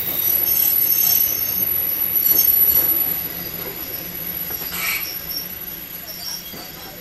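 Steel train wheels squealing against the rails as a Kotoden 1080 series car (ex-Keikyu 1000) moves slowly, loudest in the first three seconds, with several high tones over rumbling rail noise. A short hiss comes about five seconds in.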